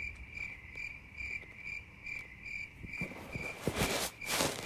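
A car's electronic warning chime beeping steadily, about two and a half beeps a second, with the driver's door open. Near the end a louder burst of rustling and handling noise.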